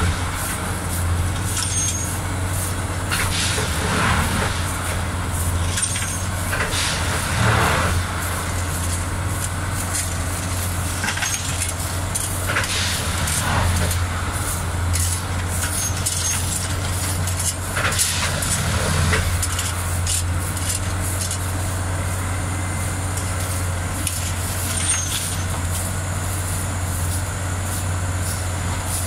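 Plasser & Theurer 08-16 multiple tie tamper running steadily with a low drone while tamping the track, with short bursts of hiss and clatter every few seconds from its working cycle.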